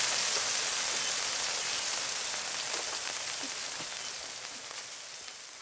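Burger patties, smashed potatoes and bacon sizzling on the hot steel top of a Camp Chef FTG600 four-burner flat top griddle: a steady crackling hiss with small pops, fading out gradually.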